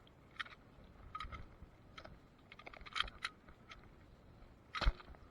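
Scattered light clicks and rattles of gear being handled close to the recorder, with one sharper knock near the end.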